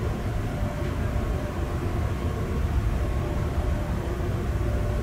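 Steady low rumble of a passenger train running along the track, heard from inside the carriage, with a faint steady hum above it.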